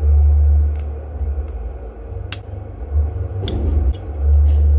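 A deep rumble swells at the start, fades, then swells again near the end. Between the swells come a few small clicks of metal tweezers working at a phone's circuit board and frame.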